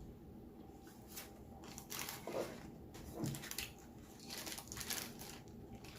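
Close-up eating sounds from a person eating: several short bursts of crunching and crinkling.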